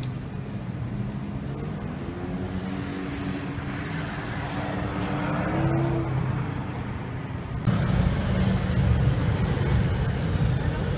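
Road traffic: vehicle engines running with a steady low rumble. Around the middle an engine note rises slowly in pitch, and near the end the traffic noise suddenly gets louder.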